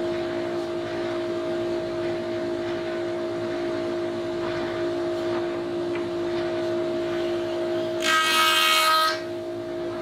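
Jointer running with a steady hum. About eight seconds in its cutterhead takes a short, louder, whining cut along a wooden rail for about a second, jointing down a rail that has bowed so that it is straight again.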